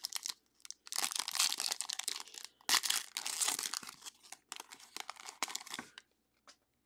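Silver foil wrapper of a Topps Tier One card pack being torn open and crinkled by hand, crackling in several bursts that stop about six seconds in.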